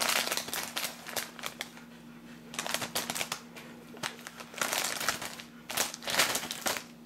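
A Sun Chips snack bag being handled and rustled, crinkling in several bursts.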